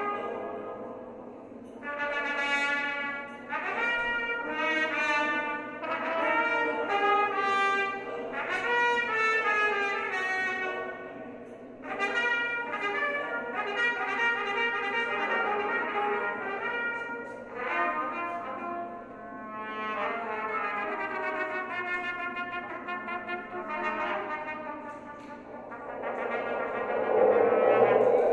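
Trumpet playing slow, free phrases of held notes, with short breaks between phrases. Near the end a louder, rougher sustained sound swells up beneath it.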